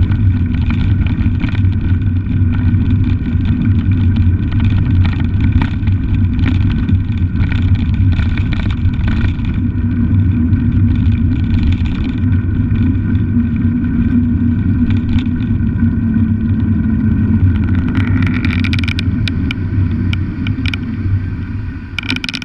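Wind buffeting a bicycle-mounted camera's microphone as the bike rolls along, with tyre noise and frequent rattling clicks from the bike and mount. The clicks are thickest on loose gravel and thin out once the tyres reach smoother tarmac about halfway through.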